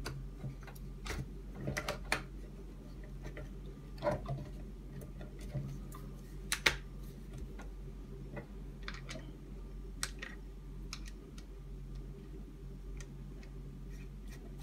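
Scattered small clicks and taps of the plastic fork, springs and suspension parts of a Bugaboo Cameleon 3 front wheel being handled and fitted together, one every second or two, over a faint steady hum.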